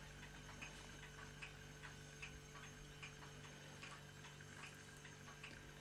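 Near silence: room tone with a faint, even ticking, about two or three ticks a second, over a low steady hum.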